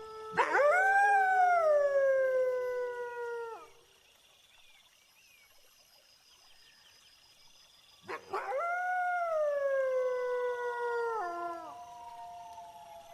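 Wolves howling: two long howls, each sweeping sharply up and then sliding slowly down for about three seconds, with fainter howls from another wolf overlapping. Crickets chirp steadily behind.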